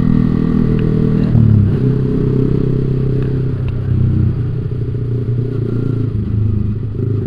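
Yamaha sport motorcycle's engine running while cruising in fifth gear. Its revs drop once about a second and a half in, then hold fairly steady with small rises and falls.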